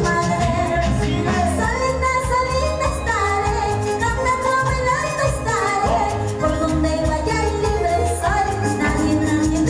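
Live band music with a steady beat, with timbales, cymbals and keyboard, and a woman singing over it through a microphone.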